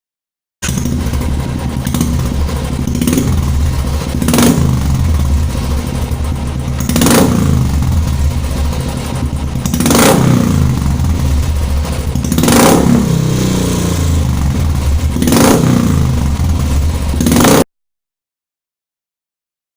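Royal Enfield single-cylinder engine idling through an aftermarket silencer with a deep, bassy thump, its throttle blipped every two to three seconds. The sound starts about half a second in and cuts off suddenly near the end.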